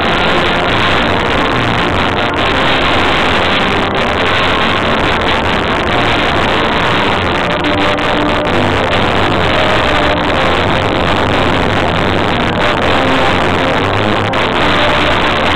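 Loud, heavily distorted music from an outdoor loudspeaker overhead, overloading the microphone into a steady harsh wash.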